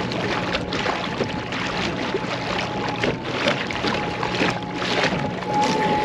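Small dinghy under way on a Temo electric outboard at full power: water rushing and splashing along the hull in irregular surges, over a faint steady motor hum.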